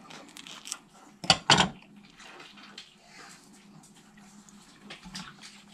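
A kitchen knife clinks twice, sharply, against a marble board or the fruit's rind about a second and a half in. Around the clinks are faint wet clicks of soft custard apple flesh being chewed.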